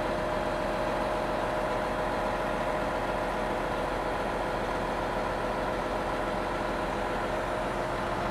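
Fendt 1000 Vario tractor's MAN six-cylinder diesel engine running steadily at idle with a steady whine, as the tractor's front is raised hydraulically.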